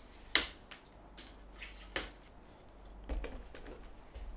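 Clicks and clacks of the 3 Legged Thing Equinox Albert carbon fibre tripod's centre column being collapsed by hand: two sharp clicks about a second and a half apart with fainter ticks between them, then a few soft knocks near the end.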